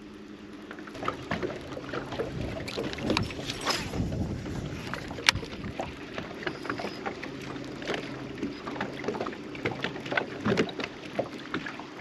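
Steady low hum of a bass boat's electric trolling motor, with irregular clicks and knocks from the reel and boat as a spinnerbait is retrieved and a bass is fought to the boat. One sharp click stands out about five seconds in.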